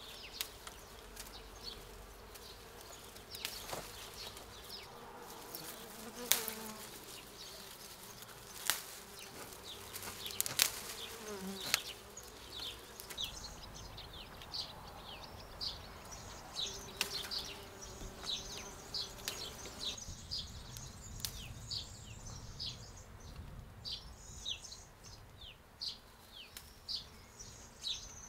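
Bees buzzing around flowering rugosa rose bushes, with scattered sharp clicks as petals are picked by hand. Through the second half, a bird gives rapid, repeated short high chirps.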